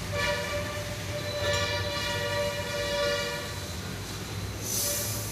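Pressure cooker whistling: steam forces up the weighted valve on the aluminium lid and blows a steady, shrill, multi-toned whistle for about three and a half seconds, then a brief second puff of hissing steam near the end. It is the cooker's first whistle, the sign that full pressure has been reached and the heat can be turned off.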